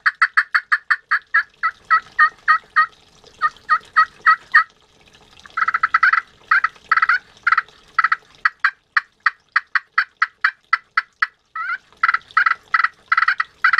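Corian friction pot turkey call, 3/4 inch thick, played with a standard striker: runs of short, rapid turkey yelps, about four or five notes a second, with a couple of brief pauses between runs.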